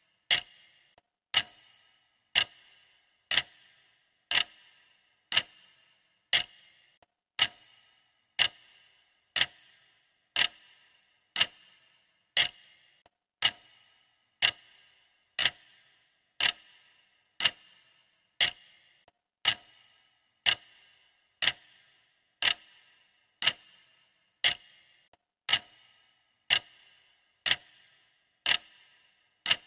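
Clock ticking steadily, one sharp tick a second: the ticking track of a countdown timer.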